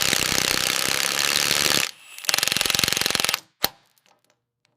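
Rapid, even hammering of a pneumatic air tool in two bursts, about two seconds and then about one second after a short pause, followed by a single sharp click.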